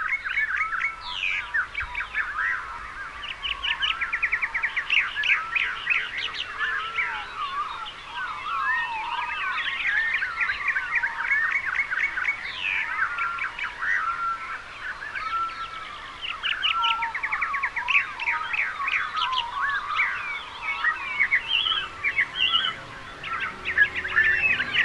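Many birds chirping and trilling at once in a dense, overlapping chorus of short calls and quick pitch sweeps, with no break.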